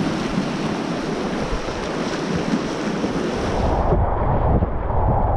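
Whitewater rushing and splashing around a kayak as it runs through river riffles. About three and a half seconds in, the sound turns duller with a low rumble of buffeting on the microphone.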